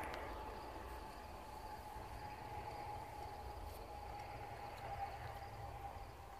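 Crickets and other insects trilling steadily in a chorus, with a low rumble of wind on the microphone.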